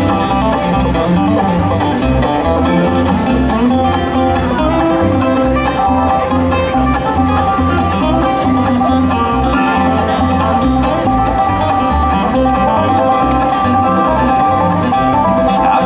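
Live bluegrass band playing an instrumental break, with banjo rolls and guitar over a steady plucked bass.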